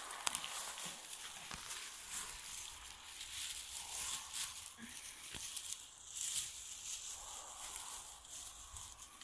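Rustling and brushing of low blueberry shrubs as Beauceron puppies push and nose through them, uneven throughout, with scattered light clicks of twigs.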